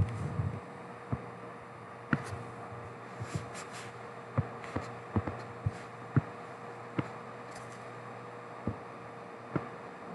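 Stylus tapping and clicking on a drawing tablet as straight lines are drawn: irregular sharp taps, roughly one or two a second, over a steady electrical hum.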